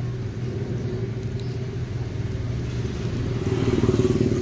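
An engine running steadily, growing louder about three and a half seconds in.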